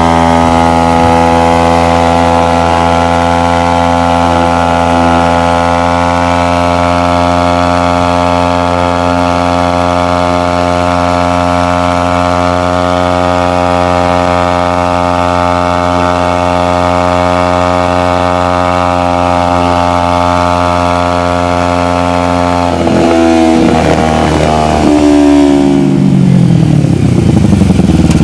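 Kawasaki Ninja 250R parallel-twin engine through a Two Brothers aftermarket exhaust, running at a steady cruise with an even engine note. About 23 seconds in the note breaks up and drops in pitch, then grows a little louder near the end.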